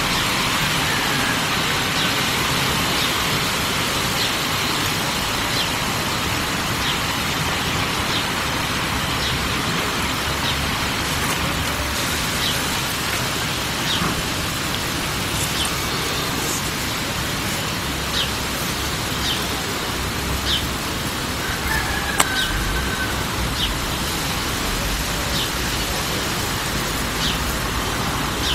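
Steady background hiss with a small bird's short, high chirps repeating every second or so. A brief, slightly falling bird call comes twice.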